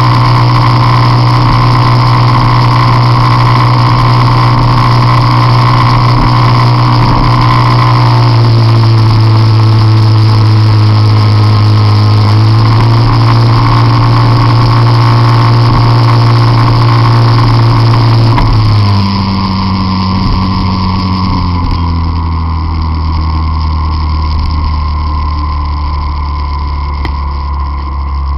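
Peugeot Jetforce Compressor scooter's supercharged engine running loud at steady high revs. About 19 seconds in its pitch and level drop as it comes off the throttle.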